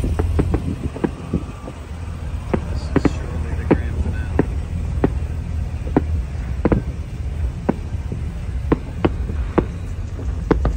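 Distant fireworks shells bursting: a steady run of sharp bangs at uneven intervals, one or two a second, over a constant low rumble.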